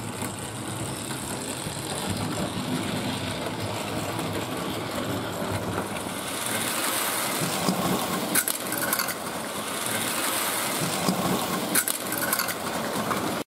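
Hornby Dublo three-rail model train running on loose-laid track: a steady whirring rattle of motor and wheels that grows louder from about halfway as the train comes close, with a couple of sharp clicks in the second half. The sound cuts off abruptly just before the end.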